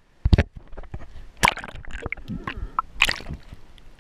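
Water splashing and sloshing close to a handheld action camera, broken by irregular knocks and rustles of the camera being handled.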